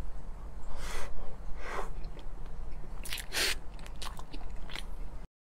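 Close-up eating sounds: a person biting into and chewing a soft chocolate dessert square, a few short bursts of mouth noise that break off abruptly near the end.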